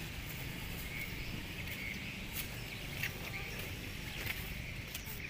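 Outdoor ambience: a steady low rumble and hiss, a faint high chirring, and a few light clicks.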